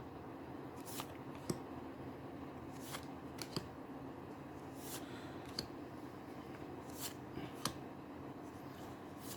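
Faint, scattered crinkles and sharp little clicks of a Magic: The Gathering booster pack's wrapper and cards being handled and torn open by hand, about one or two small sounds a second.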